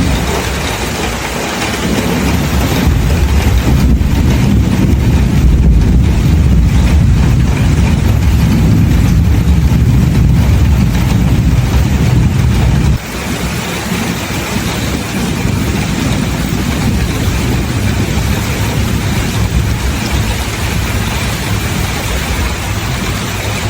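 Rain with a long, low rumble of thunder that cuts off suddenly about halfway through, leaving steady rain noise.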